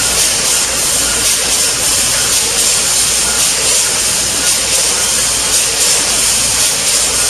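Automatic packaging machine line running in a factory hall: a loud, steady hissing machine din with no breaks.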